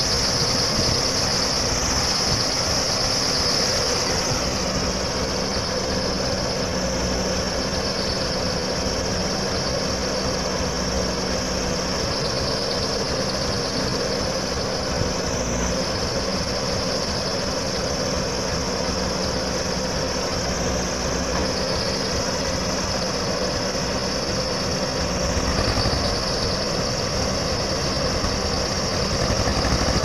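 Diesel engines of a farm tractor and a JCB 3DX backhoe loader running steadily at low revs.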